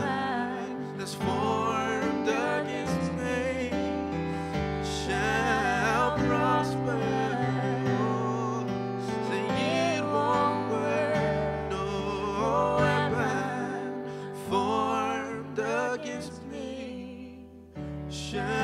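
Live gospel worship band: electric keyboard holding sustained chords under a lead singer's voice, which wavers in ornamented runs with vibrato.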